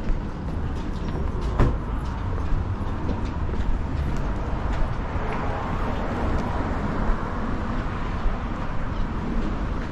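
Wind buffeting an action camera's microphone: a steady, gusty low rumble.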